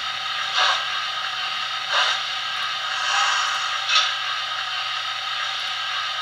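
Recorded steam-locomotive sound (a GCR J11 recording) played by a Zimo MX644 DCC sound decoder through a small round speaker in an OO-gauge model tender. It is a steady steam hiss with four louder puffs about a second apart, the last about four seconds in.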